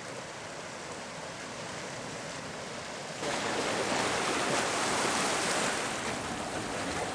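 Surf washing over lava rocks at the shoreline, a steady rush of waves and wind. About three seconds in it jumps suddenly louder and hissier.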